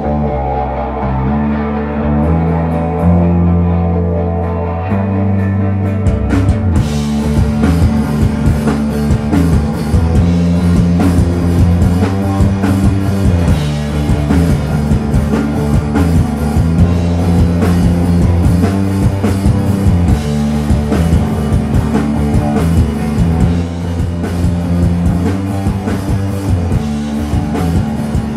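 Live rock band playing an instrumental passage on electric guitar, bass guitar and drum kit. Sustained guitar and bass chords open it, and the full drum kit with cymbals comes in about six seconds in.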